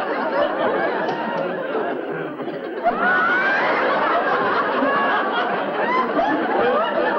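Audience laughter: many people laughing at once, swelling sharply about three seconds in.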